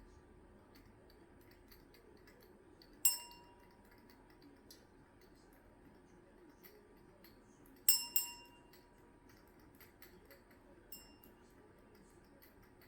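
A cockatoo's toy bell rung as the bird shakes it: one sharp ring about three seconds in, two quick rings near the middle and a faint one later. Each ring dies away with a clear metallic tone. Faint light clicking runs between the rings.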